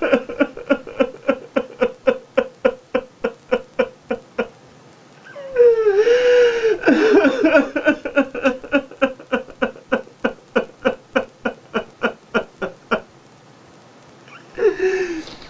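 A man sobbing hard: rhythmic, gasping sobs about four or five a second, broken by a long wavering wail about six seconds in. The sobbing stops near the end, followed by one short wail.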